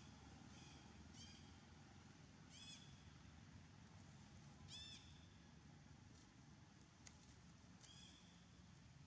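Faint, high-pitched squeals from baby macaques: about five short, arching calls, the loudest near the middle, over a low background rumble.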